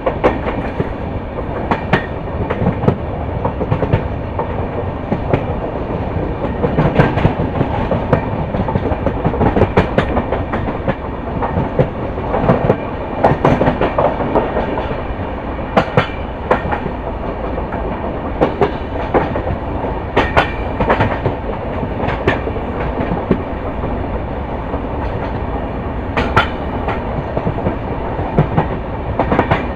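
LHB passenger coaches of an express train running over the track: a steady rumble of wheels on rail, broken by sharp clicks and clacks at irregular intervals as the wheels pass rail joints.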